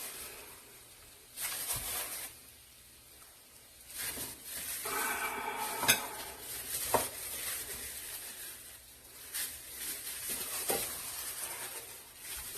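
Bibimmyeon noodles being tossed and mixed in a bowl: wet rustling and scraping in several bursts, with a couple of sharp clinks against the dish about six and seven seconds in.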